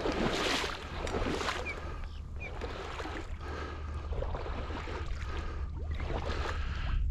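Wind rumbling on the microphone over a marsh, with water sloshing and splashing in repeated surges about once a second.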